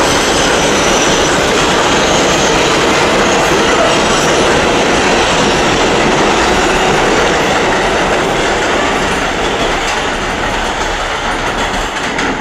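R142A/R188 subway train running past close by on an elevated steel structure: a loud, steady noise of wheels on rails, easing off over the last few seconds as the train moves away.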